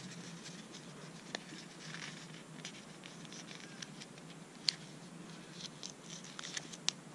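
Faint rustling and small ticks of a paper label sticker being picked at and peeled off its backing sheet by fingers, with one sharper tick about halfway through and a few more near the end.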